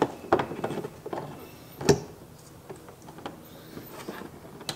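Hands working plastic parts and wiring into place behind a car's side-marker light: scattered light clicks, rubbing and knocks, with the sharpest knock about two seconds in.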